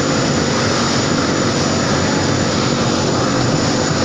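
A belt-driven 100 kg powder mixer running: its electric motor and drive belt turning the mixing drum, a loud, steady mechanical noise that does not change.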